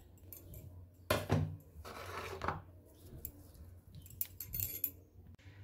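Chicken pieces being mixed by hand with curd, salt and spice powders in a bowl: a few soft scrapes and small clinks of the bowl.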